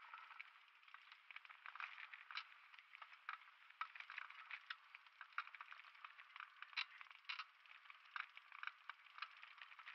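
Faint rattling and scraping of a downhill mountain bike rolling over a loose, stony dirt track: a steady hiss of tyres on dirt broken by irregular clicks and clatters from stones and the shaking bike. The sound is thin, with no bass.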